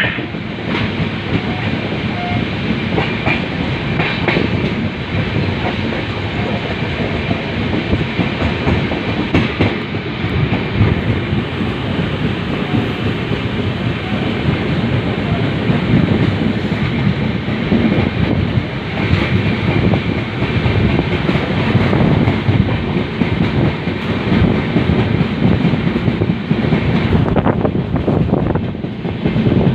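Indian Railways LHB passenger coaches running on the rails at speed: a steady loud rumble with wheel-on-rail clatter.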